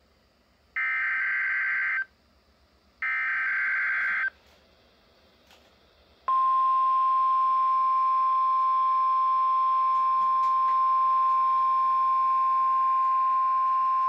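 A NOAA Weather Radio receiver's speaker sounding the Emergency Alert System test tones. Two harsh, buzzing SAME header data bursts, each about a second long and a second apart, are followed by a pause of about two seconds. Then a steady single-pitched warning alarm tone starts about six seconds in and holds unbroken.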